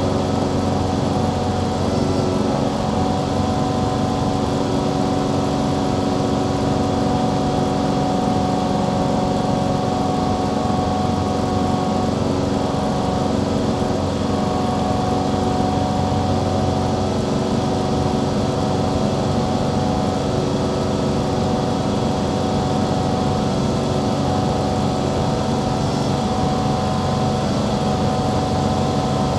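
Small piston-engine airplane's engine and propeller running with a steady drone, heard inside the cabin during a climb.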